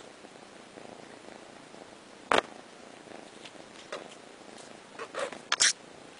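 Kitten purring steadily, with a sharp knock about two seconds in and a short cluster of clicks and knocks near the end, the loudest sounds here.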